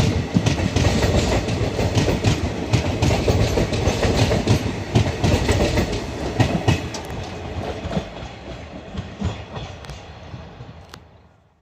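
Wheels of a passenger train's ICF coaches clattering over crossover points and rail joints in a rapid, irregular clickety-clack over a low rumble. The sound fades away over the last few seconds as the train moves off.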